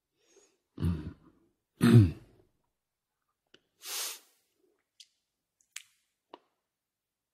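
A man's voice close to the microphone: two short spoken syllables, then an audible breath about four seconds in, followed by a few faint clicks.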